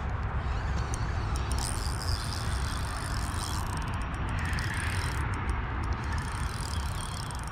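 Steady low wind rumble on the microphone, with a faint high ticking from a spinning reel being cranked.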